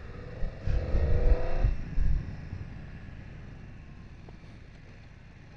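BMW F900XR's parallel-twin engine accelerating briefly, its pitch rising for under two seconds, with low gusts of wind noise on the microphone. The throttle then closes and the sound settles to a faint, steady hum that slowly fades.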